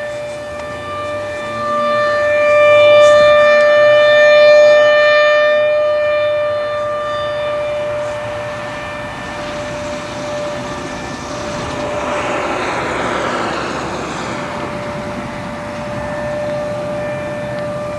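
Federal Signal Thunderbolt 1000 rotating outdoor warning siren sounding a steady single tone. Its blower is malfunctioning, so the tone is weak rather than a scream. The tone swells louder a few seconds in as the rotating horn sweeps round, then eases off. A rushing noise rises and falls over it about twelve seconds in.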